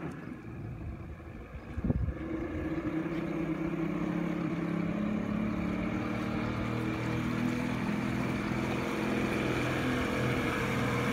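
60 hp outboard motor on an aluminium fishing boat running at low speed as the boat pulls away, with a brief thump about two seconds in. The engine grows louder after the thump and holds a steady pitch, then starts to rev up right at the end.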